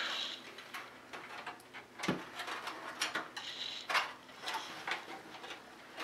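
Screwdriver loosening the screws on a PC case's expansion-slot covers: irregular small metallic clicks and scrapes.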